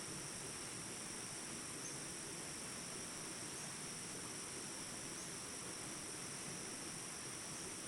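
Steady, high-pitched insect chirring, unbroken throughout, over the even rush of a mountain river flowing among rocks.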